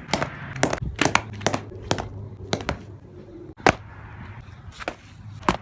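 Leather baseball glove being struck over and over by a ball, giving about a dozen sharp pops at an uneven pace, some in quick pairs.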